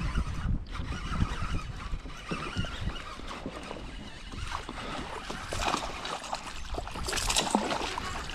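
Water and handling noise aboard a fishing kayak: many low knocks and bumps against the hull over water sloshing, growing louder and hissier about seven seconds in.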